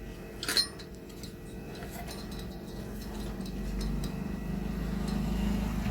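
A sharp click about half a second in, then a few faint ticks, as a CPU heatsink fan with plastic push-pin locks is handled over the motherboard. A low rumble grows louder towards the end.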